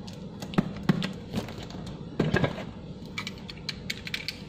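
Cardboard box of a wok being handled and turned on a tile floor: a few separate knocks and scrapes, then a run of quick light clicks near the end.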